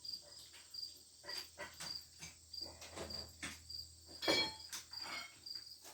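Crickets chirping steadily, about two high chirps a second, with scattered clicks and knocks of metal parts and tools being handled and a louder metallic clank about four seconds in.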